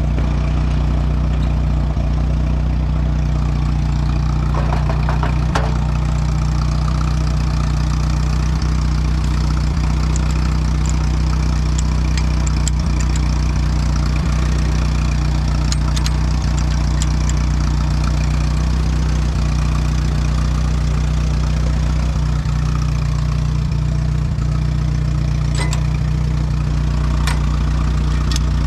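Allis-Chalmers WD tractor's four-cylinder engine idling steadily, with a few sharp clicks over it.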